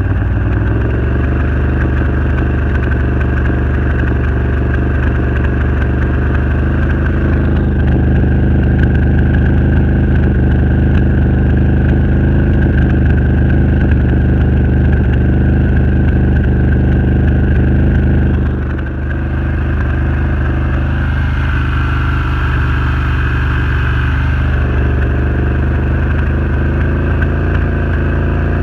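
Can-Am Renegade 1000 ATV's V-twin engine running steadily at a low speed with a misfire. The level dips briefly about two-thirds of the way in, then the engine settles back to steady running.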